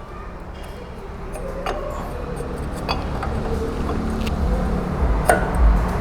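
Scattered light metallic clinks and taps as the steel exhaust bend pipe is handled and fitted. Under them a low rumble builds from about halfway in, like a motor vehicle passing close by.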